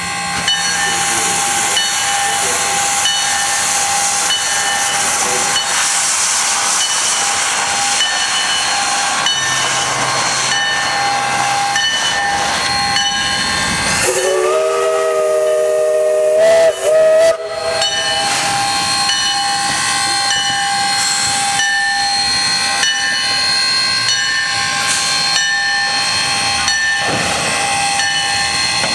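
1913 0-4-0 steam locomotive hissing steadily as it stands under steam. About halfway through, its steam whistle blows for about three seconds, several notes sounding together, with a brief break near the end.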